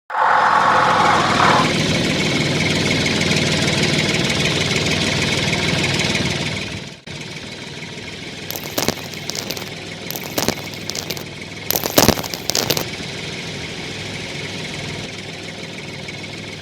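A DIY model tractor's small motor running steadily and loudly. About seven seconds in it cuts to a quieter running sound, with bursts of sharp clicking and clatter over the next few seconds.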